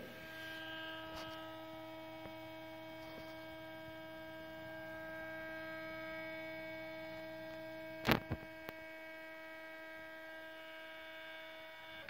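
Z-axis stepper motor of a 3018 CNC router lowering the spindle slowly at 24 mm per minute: a steady whine of several held pitches that stops at the end as the bit reaches the surface of the stock. A single sharp knock about eight seconds in.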